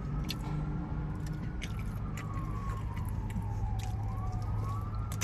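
An emergency vehicle's siren wailing, its pitch rising and falling slowly and then rising again near the end, over a steady low hum and faint clicks.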